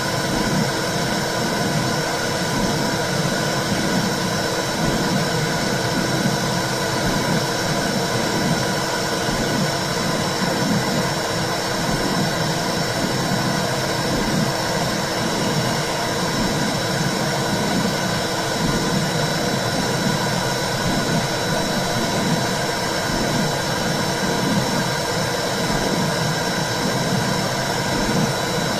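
Womb sound: a steady whooshing rumble with a regular, heartbeat-like pulse in the low end, along with a thin, steady high tone.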